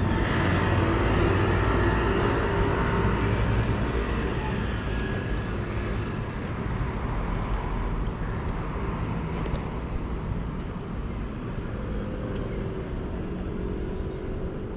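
Street traffic: a motor vehicle going by, loudest in the first few seconds and fading, over a steady background of road traffic.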